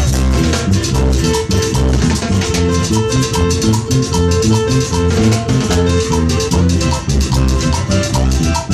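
Live band playing an up-tempo Latin dance tune: strummed acoustic guitars over bass guitar and a drum kit keeping a fast, steady beat.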